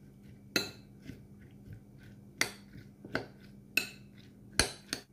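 Metal spoon stirring chopped tomato, onion and capsicum in a glass bowl, clinking sharply against the glass about six times at uneven intervals, with soft stirring of the wet vegetables in between.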